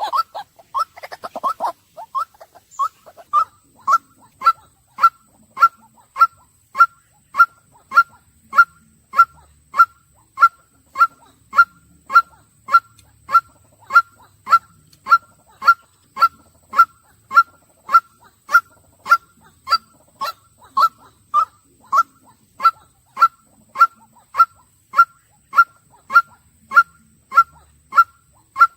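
White-breasted waterhen calling: a long, monotonous series of short, identical, honking notes, about two a second. In the first couple of seconds a rougher, lower jumble of calls comes before the steady series settles in.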